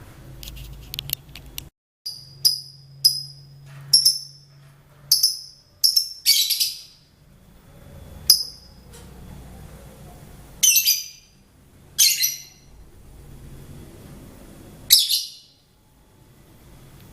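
Lovebird giving sharp, high-pitched chirps, one at a time at irregular gaps, about a dozen in all, a few of them longer and harsher.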